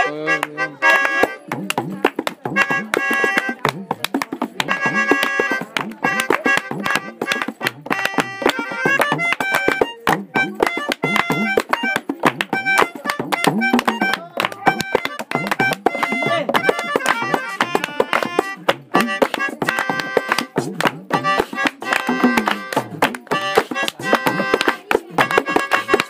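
Live acoustic jam session: hand drums and hand-clapping keep a steady, fast rhythm under a melody instrument playing held notes.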